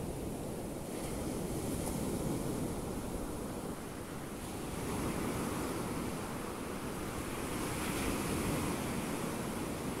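Small Black Sea waves breaking and washing up a sandy beach, the surf swelling about three times, every three seconds or so.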